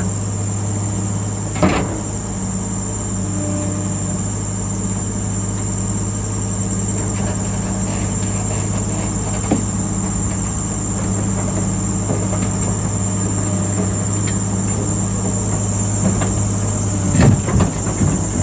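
Heavy diesel earth-moving machine running steadily, with a few sharp knocks about two seconds in, around the middle, and a cluster near the end. A steady high insect trill, like crickets, sounds over the engine.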